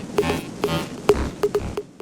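Quick, uneven clock-like ticks laid over music with a low beat, all fading out near the end.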